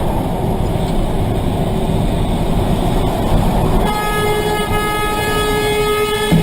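Loud, steady vehicle rumble, then a horn starts about four seconds in and is held as one long, steady blast.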